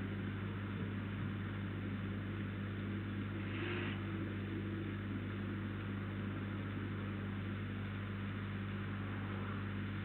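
Steady low electrical hum with background hiss from the camera's audio, with one short hiss about four seconds in.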